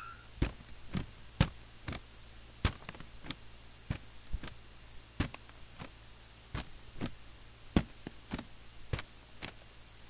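Footsteps walking away: irregular sharp steps, roughly one to two a second, over a faint steady hum.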